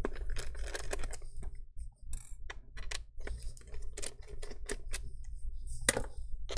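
Irregular light clicks and taps of fingers handling parts inside an opened Lenovo ThinkPad T460s laptop, with one sharper click near the end.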